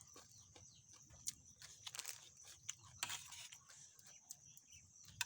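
Close eating sounds: wet chewing and lip smacks, heard as a string of short clicks with a couple of louder noisy bursts, over a steady high insect trill.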